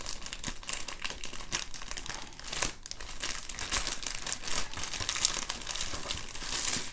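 Clear plastic wrap around a rolled canvas crinkling and crackling irregularly as hands grip and handle it.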